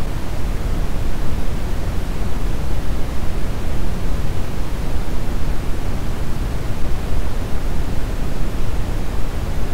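Steady brown noise: an even, deep rushing hiss, its energy strongest in the low end and falling away toward the highs.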